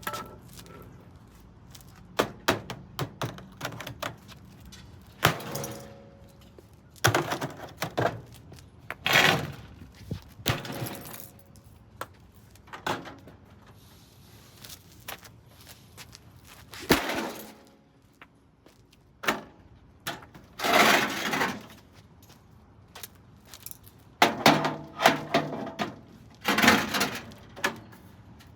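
Dometic RV microwave being smashed apart: a long series of heavy blows, some single and some in quick clusters of several hits, a few leaving a short metallic ring, with cracking and breaking of its parts.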